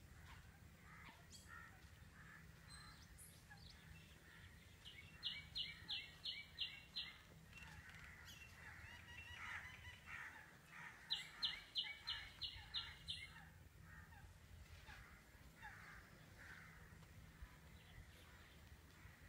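Birds calling: faint scattered chirps throughout, and twice a loud run of six or seven sharp, high calls in quick, even succession, the first a few seconds in and the second just past the middle.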